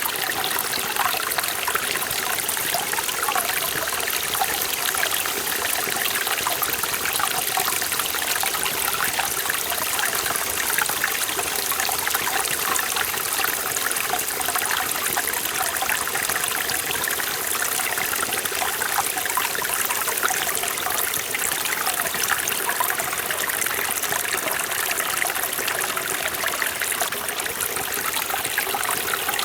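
Mountain stream water flowing and splashing over rocks, a steady, continuous babbling and trickling with no breaks.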